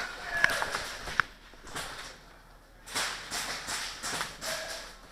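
Two sharp cracks under a second apart, then after a short lull a run of irregular rustling footsteps.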